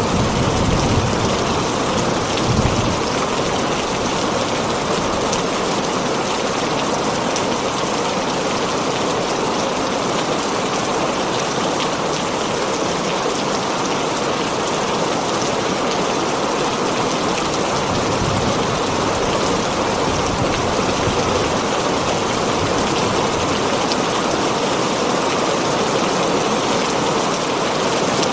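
Heavy rain falling on a tin roof, a steady, dense patter. A low rumble of thunder fades out in the first few seconds.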